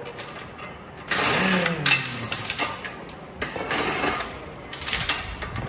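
Metal clicking and rattling of hand tools working on the tractor's wheel nuts, in short bursts with sharp clicks near the end.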